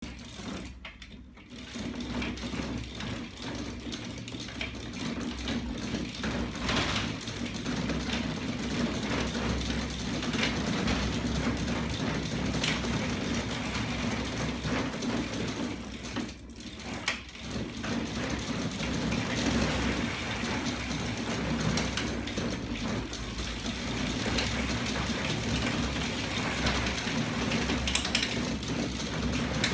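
Chain drive, belt pulleys and spinning rear wheel of a homemade magnet-engine pedal-assist rig on a bicycle, running with a steady hum and fast, dense mechanical clicking and clatter. The sound briefly drops away just after the start and again about halfway through.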